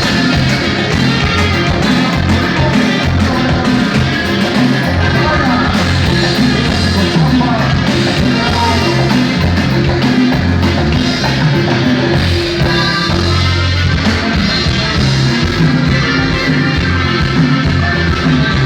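Norteño band music with a steady, pulsing bass beat.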